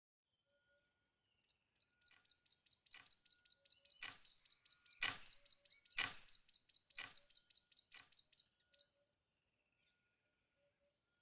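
Faint forest sound with short high bird chirps. Over it a fast, high rattling trill and a run of sharp clicks about once a second build up, loudest in the middle, and stop about two seconds before the end.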